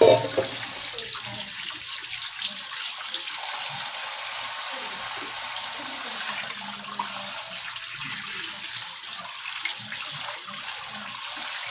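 Tap water pouring in a steady stream into a bowl of milkfish pieces, splashing as hands rinse and rub the fish under it.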